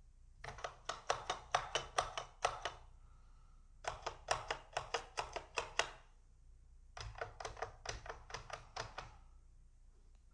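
Stabilized keys on a mechanical keyboard with Outemu Red linear switches, pressed in three quick runs of clicks, about five a second, with short pauses between runs. The audio is slowed to half speed.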